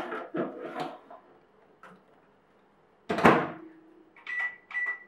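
Metal baking tray scraping onto the rack of an LG convection microwave oven, then the oven door shut with a single loud thud about three seconds in, followed by two short beeps from its keypad.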